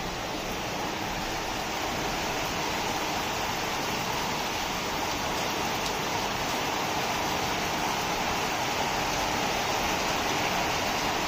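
Heavy rain falling steadily, a dense even hiss that grows a little louder over the seconds.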